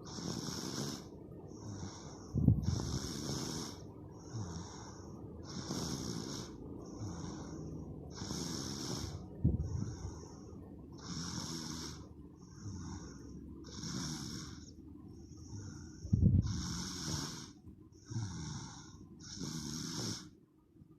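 Loud, rhythmic snoring during sleep, a rasping snore on each breath in and out, with a louder, deeper snort about every seven seconds.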